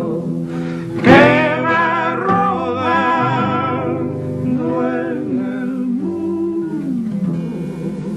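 Ecuadorian folk song sung by a male vocal duo with vibrato over plucked acoustic guitar. The voices come in strongly about a second in.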